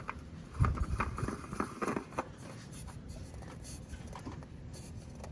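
Light knocks, clicks and scrapes of a new oil filter being handled and threaded on by hand, busiest in the first two seconds, then a few faint ticks.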